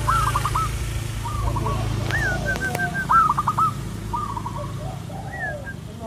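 Caged zebra dove (perkutut) singing its cooing song: a repeated phrase of quick, short notes, about one phrase a second, over a low steady hum.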